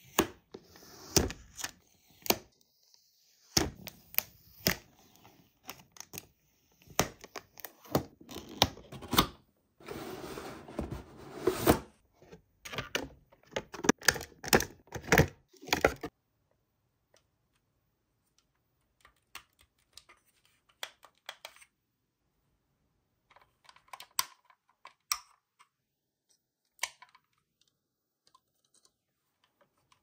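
Clear adhesive tape seals being peeled off a cardboard toy box, with sharp ripping peels, taps and clicks on the cardboard and crinkling packaging, dense and loud for the first half. After that, only scattered quiet clicks and taps of plastic packaging being handled.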